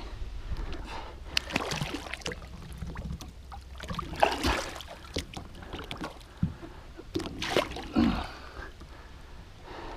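Lake water splashing and sloshing beside a small boat as a muskie is held in the water and released by hand, in irregular bursts with a few knocks.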